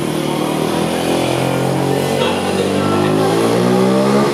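Motor vehicle engine running on the street and rising in pitch as it accelerates, loudest near the end.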